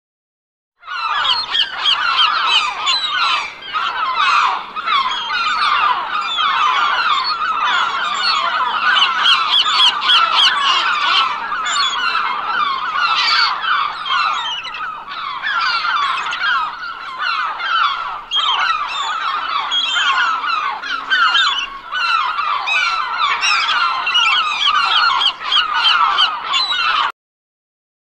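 A large flock of gulls calling all at once: a dense, unbroken chorus of overlapping squawks. It starts about a second in and cuts off abruptly just before the end.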